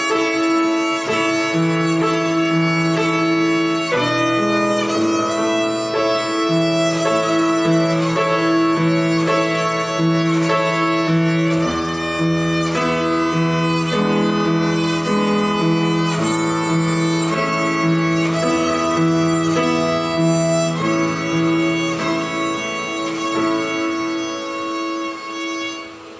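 Violin playing a simple beginner-level melody over an accompaniment with a steady, evenly repeating bass line; the music drops away near the end.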